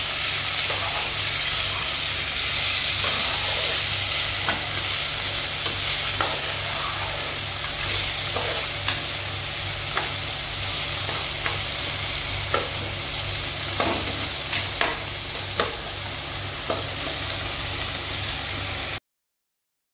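Chopped onions, tomatoes, potatoes and green chillies sizzling in oil in a kadai while a slotted spatula stirs them, with sharp clicks of the spatula against the pan about once a second. The sound cuts off suddenly near the end.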